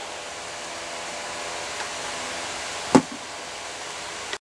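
Steady fan-like hiss of room noise, with one sharp knock about three seconds in as the rifle is handled and set against the bench. The sound drops out completely for a moment near the end.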